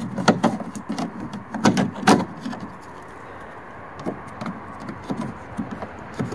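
Plastic trunk-lid trim panel being pressed onto its clips by hand: a few sharp clicks and knocks in the first two seconds or so, then lighter scattered taps and rubs.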